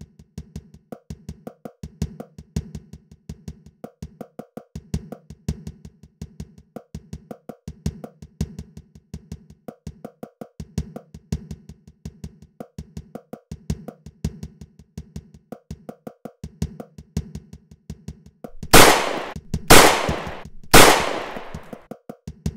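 Rhythmic percussion music, quick wood-block-like clicks over a low repeating bass figure. Near the end the music breaks off for three loud gunshots about a second apart, each with a long echoing tail, and then picks up again.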